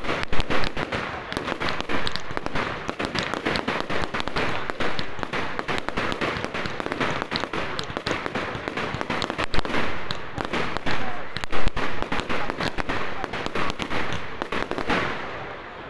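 Fireworks display: aerial shells bursting and glittering stars giving off dense, continuous crackling and popping, with a few louder bangs standing out, about half a second in and near ten and twelve seconds.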